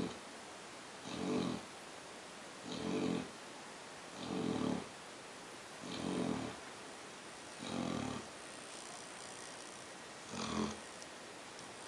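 A sleeping pet snoring steadily: seven short, low snores, one with each breath about every second and a half, with a longer pause before the last one near the end.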